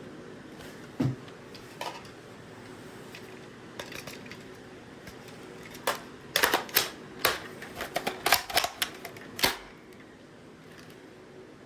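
Hands handling an airsoft sniper rifle and its parts: a dull knock about a second in, then a quick irregular run of a dozen or so sharp plastic-and-metal clicks.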